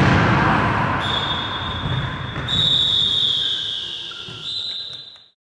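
Echoing sports-hall noise from an indoor five-a-side football game, fading over the first couple of seconds. A steady high tone comes in about a second in, strengthens, sags a little in pitch and rises again, and everything cuts off suddenly near the end.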